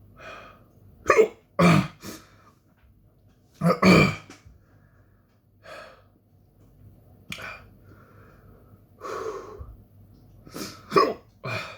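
A man's hiccups, a dozen or so short sharp ones at irregular intervals, with breathing between them. They are brought on by eating a super-hot Carolina Reaper chili.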